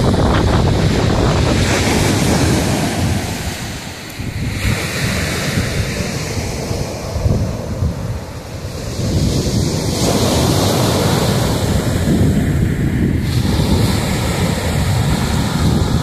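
Small sea waves breaking and washing up a sandy, pebble-strewn beach, with wind buffeting the microphone in a heavy rumble that eases for a few seconds about a quarter of the way in.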